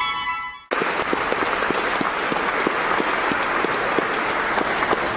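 The last violin note ends abruptly under a second in, and audience applause follows: many hands clapping steadily.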